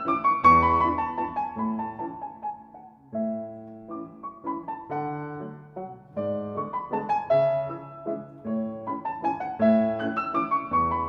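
Background solo piano music, a slow melody over repeated chords, with a new phrase starting about three seconds in.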